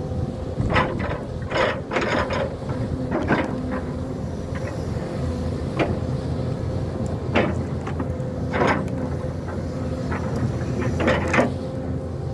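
Hyundai crawler excavator's diesel engine running steadily under load with a steady whine. About a dozen sharp knocks and cracks come at irregular intervals.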